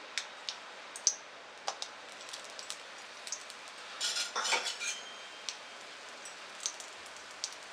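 Cashews starting to fry in a little hot ghee in a steel kadhai: scattered small pops and clicks over a faint steady hiss, with a short cluster of clicks about four seconds in.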